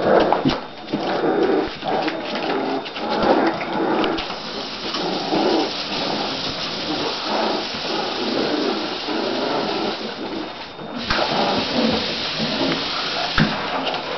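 A litter of Olde English Bulldogge puppies whimpering and yipping over a steady rustling noise.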